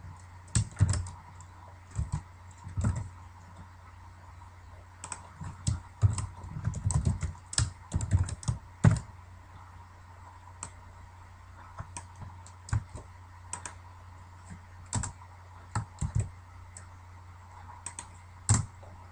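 Computer keyboard typing: irregular runs of keystrokes with short pauses, busiest in the first half and sparser after.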